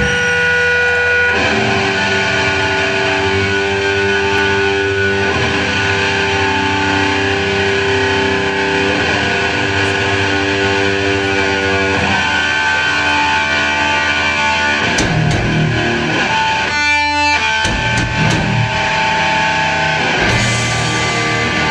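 Heavy metal band playing live: loud, distorted electric guitars holding long notes over bass, with a short break in the low end about seventeen seconds in.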